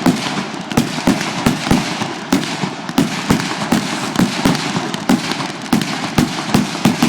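Fireworks show at close range: aerial shells bursting in a rapid barrage of sharp bangs, two or three a second, over continuous crackling.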